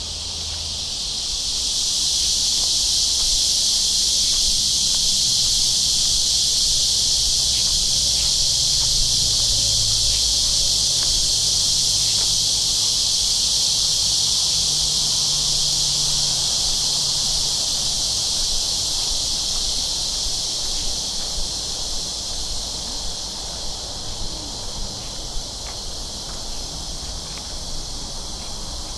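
A chorus of summer cicadas buzzing steadily, swelling over the first two seconds and easing a little in the second half.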